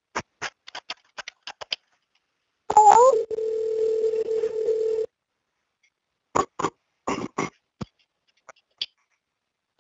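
Telephone line sounds: a quick run of sharp clicks, then a dial tone that starts with a short rising chirp, holds for a couple of seconds and cuts off. More clicks follow, and the chirp and tone start again near the end.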